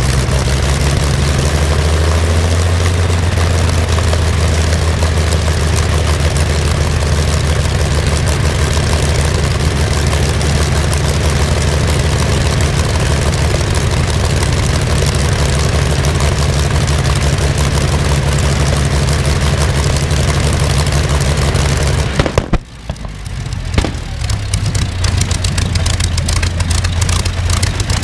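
Rolls-Royce Griffon 58 V12 aero engine running steadily with its propeller turning, a deep, even drone. About 22 seconds in the sound drops away abruptly, then comes back weaker and uneven as the propeller slows.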